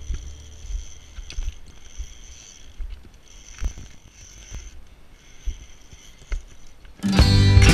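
Footsteps crunching on loose shale scree, about one every second, with gusty wind buffeting the camera's microphone. Music comes in near the end.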